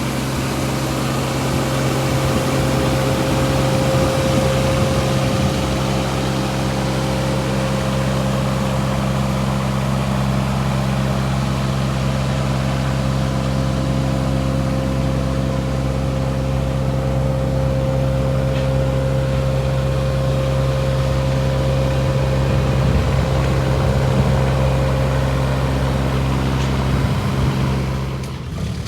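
Volvo EC15E mini excavator's diesel engine running steadily, with a steady whine over the engine note. The level drops just before the end.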